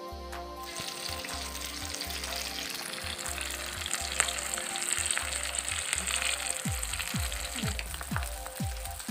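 Masala-coated tilapia frying in hot oil in a kadai: a steady sizzle with occasional sharp pops, starting about a second in. A music track's pulsing bass beat runs underneath.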